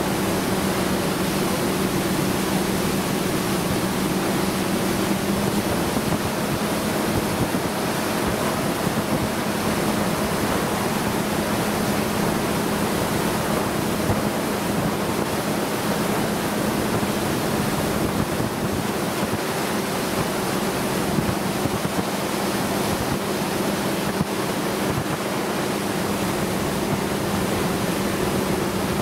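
Motorboat under way: a steady rush of water and wind, with an engine running at a constant drone underneath.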